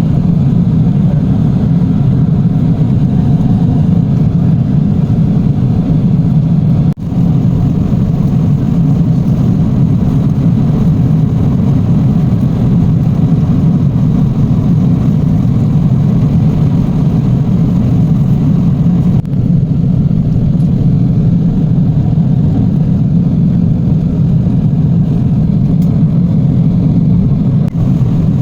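Steady low drone inside a jet airliner's cabin in flight, the engines and rushing air giving a constant loud rumble. It drops out for an instant about seven seconds in.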